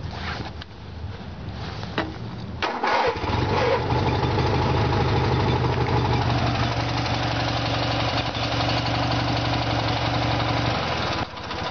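Craftsman lawn tractor's 16 hp Briggs & Stratton twin-cylinder engine being started cold on its electric starter: it cranks for a couple of seconds, catches about three seconds in and then runs steadily, changing note near the end.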